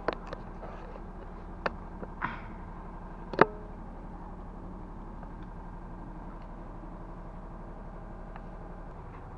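A Pomeranian crunching a piece of raw carrot: about five short, sharp crunches in the first three and a half seconds, the loudest near the end of them, over a steady low hum that is all that remains afterwards.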